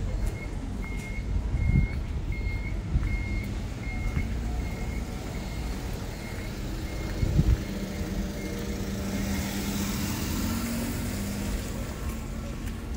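A vehicle's reversing alarm beeping at a steady high pitch, about one and a half beeps a second, fading away around eight seconds in. Then a motor vehicle's engine hum grows as a vehicle passes, over street traffic noise.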